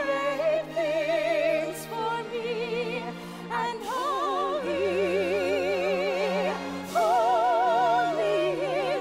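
Women singing long held notes with wide vibrato in a full, operatic musical-theatre style over instrumental accompaniment with sustained low notes, as in a Christmas stage musical's song.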